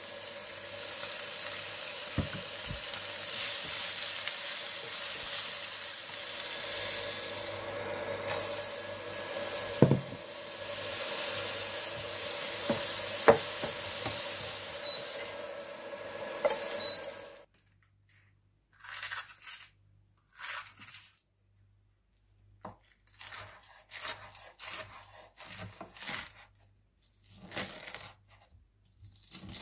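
Vegetables sizzling in a hot nonstick frying pan as they are stir-fried, with a slotted spatula scraping and now and then knocking sharply against the pan. After about 17 seconds the sizzle cuts off and a chef's knife slices a thin egg omelette on a wooden cutting board in a series of short, separate cuts.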